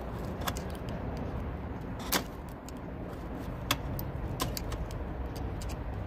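Scattered sharp metallic clicks, the loudest about two seconds in, as a screwdriver blade touches and scrapes across the terminals of an air conditioner's run capacitor to bridge them, over a low steady rumble.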